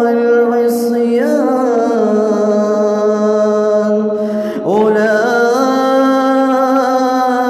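A man's voice reciting the Quran in slow, melodic tajweed, drawing the words 'wal-fusuq' and 'wal-'isyan' out into long held, ornamented notes. There is a short break for breath about four and a half seconds in, then the next word begins.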